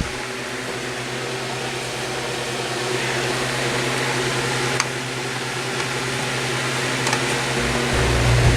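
Holmes Blizzard HAOF87 oscillating fan running on high: a steady motor hum under a lot of wind noise from the blades, slowly growing louder and softer as the head sweeps. A small click comes about five seconds in, and a low rumble joins near the end.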